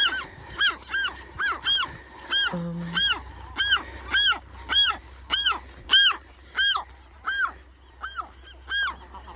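Western gulls calling: a long run of loud squawks, about two a second, each rising and falling in pitch. They are alarm calls at a person walking close to their nests and chicks.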